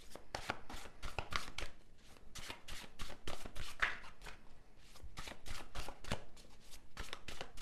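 Tarot cards being shuffled by hand: an irregular run of light slaps and clicks, about three or four a second.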